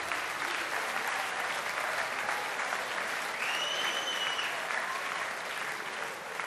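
Large audience in a hall applauding steadily, with a short high whistle about halfway through. The clapping eases slightly near the end.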